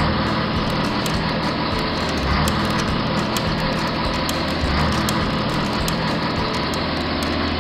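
Vehicle engine sound effect running steadily, a dense rumble added over the toy play.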